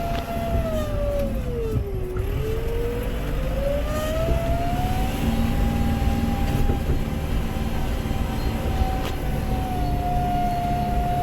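Case CX100 tractor driving in high first gear: the engine runs under a steady rumble with a clear whine that dips in pitch about two seconds in, climbs back and then holds steady.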